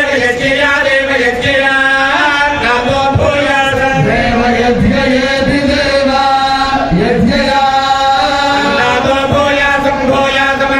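Group of voices chanting Vedic hymns together in long, held tones, steady throughout.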